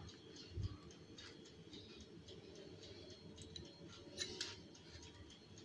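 Faint, quiet kitchen handling noises: scattered small irregular clicks, a soft low thump about half a second in and two slightly louder clicks a little past four seconds, as flattened cookie-dough balls are worked on a parchment-lined baking tray.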